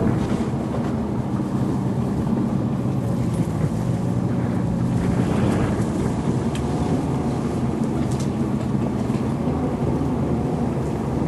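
Studebaker M29 Weasel tracked vehicle's six-cylinder flathead engine running steadily, with a few sharp clicks over it.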